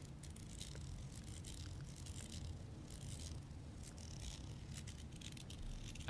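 Faint, scattered small clicks and light rattling from something handled close to the microphone, over a low steady rumble.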